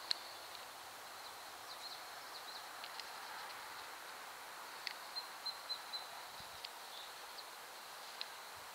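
Quiet outdoor pond ambience: a steady soft hiss with scattered faint clicks, and a quick run of five short high chirps about five seconds in.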